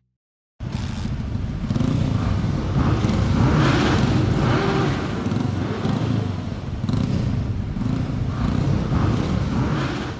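A mass of motorcycle engines running together in a loud, rising and falling rumble. It cuts in abruptly about half a second in.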